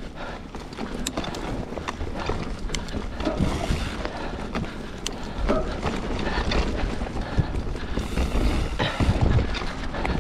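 Mountain bike ridden along a trail: wind rumbling on the microphone, tyre noise and many sharp rattling clicks from the bike over rough ground.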